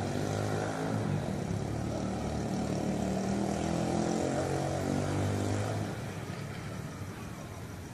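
A motor vehicle's engine running steadily, then fading about six seconds in.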